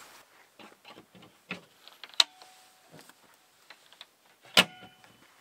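Firewood being handled and laid in a fire pit: scattered small clicks and rustles, with two sharp knocks about two and four and a half seconds in, each ringing briefly, the second the loudest.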